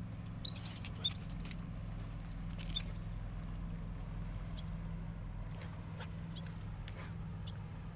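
Squirrels chirping their sharp, high-pitched alarm calls: quick clusters of chirps in the first few seconds, then fainter single chirps every second or so.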